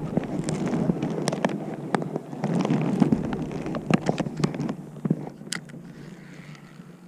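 Tree branches and leaves rustling and snapping as a fishing lure snagged in the tree is pulled and worked loose. Dense crackling with many sharp snaps, dying down after about five seconds.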